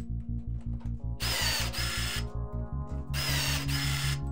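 Cordless pop-rivet gun setting blind rivets in a flap hinge, two in quick succession: each a motor whir of about a second with a brief break midway. Background music with a steady beat underneath.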